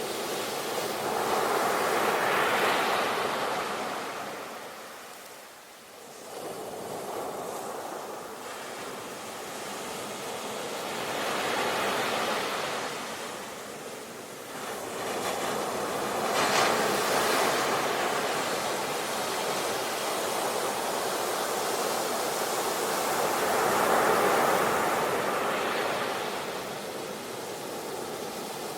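Sea waves washing onto a shore in slow, uneven surges: the hiss of surf swells four times and dies back between, with a brief lull early on.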